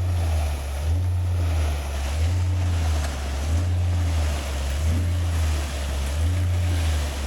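Diesel-powered concrete pump running during a foundation pour, its deep engine note surging in a regular rhythm about once every 1.2 seconds as the pump strokes push concrete through the line.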